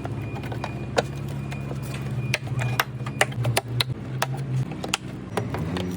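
Sharp clicks and taps of hand work on a Ford Transit's rear tail-light unit, coming more often after about two seconds, over a steady low hum that shifts in pitch near the end.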